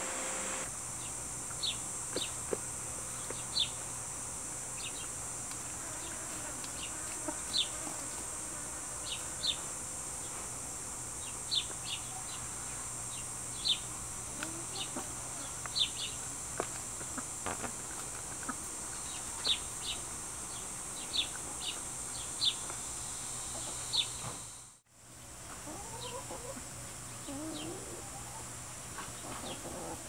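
Farmyard chickens outdoors over a steady high insect drone. Short high bird chirps come every second or two. After a brief dropout about 25 seconds in, low chicken clucks are heard.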